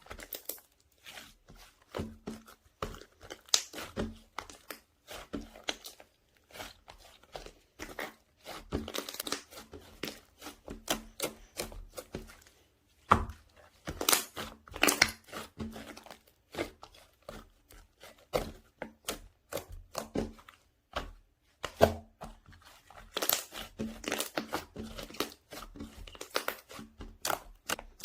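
Hands squishing, stretching and poking a soft ice cream slime, giving irregular sticky crackles, pops and tearing sounds with short pauses between handfuls.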